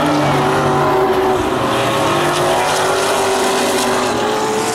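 Vintage modified race cars running on an oval track. Several engines sound at once at different pitches, their notes drifting slightly up and down.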